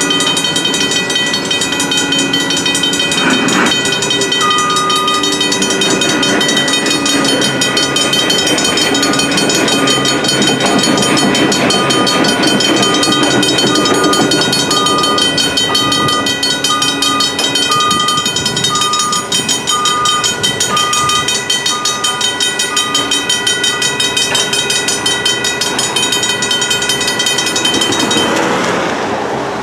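Griswold mechanical railroad-crossing bells ringing rapidly and steadily while the crossing is activated. They cut off near the end, as the gates rise and the activation ends.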